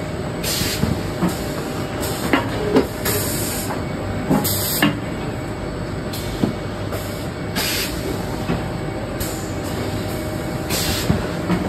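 Cardboard-sheet palletizing line running: a steady hum of conveyor machinery, with short hisses of compressed air every one to three seconds and a few light knocks.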